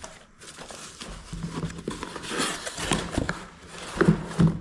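Cardboard shipping box being handled and opened by hand: the flaps rustle and scrape, with small clicks and two sharp knocks near the end.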